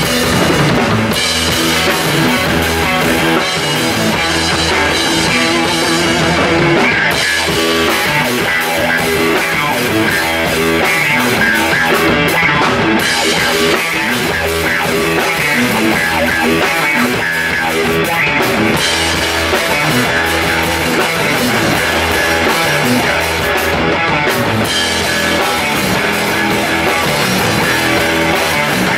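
Rock band playing, with drum kit and guitar.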